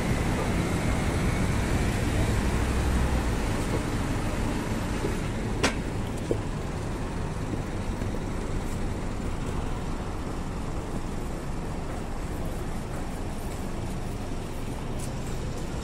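Street traffic: motor vehicles passing, with a heavier engine rumble for the first few seconds that then settles to a steady hum. There is a sharp click about six seconds in.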